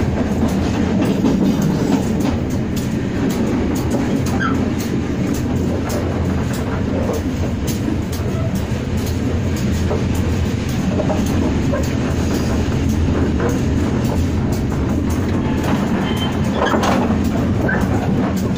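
Steady rumble of a moving local passenger train heard from inside the carriage, with irregular clicks of the wheels running over the track.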